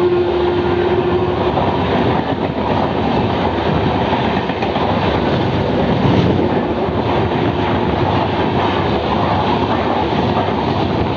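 A passenger express running past at speed on the adjacent track, a few metres away: a continuous rush of coaches with the clatter of wheels on the rails. A steady single note dies away about a second and a half in.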